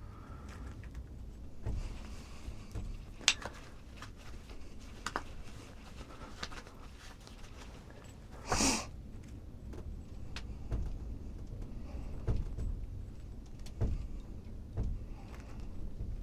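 Hand knapping of a stone point: scattered sharp clicks and scrapes of tool on stone, with one sharp click about three seconds in and a short hissing scrape about halfway through, over low handling rumble.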